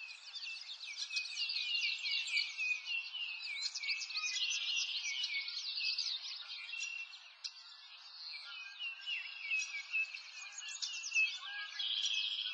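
Many small songbirds chirping and twittering together in a dense chorus of quick, high notes.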